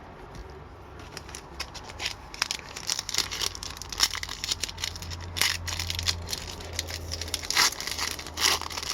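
A trading-card pack wrapper being handled and torn open, with irregular crinkling and crackling.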